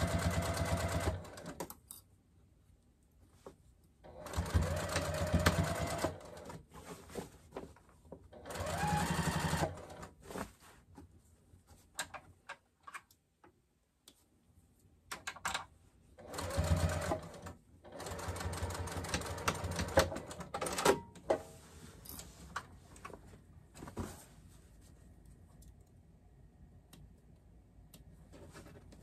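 Domestic sewing machine top-stitching through layers of quilt cotton and waterproof canvas. It runs in several short bursts of one to two seconds with stops between, slowed down for a thick seam. Sharp clicks and fabric handling fill the pauses, mostly in the second half.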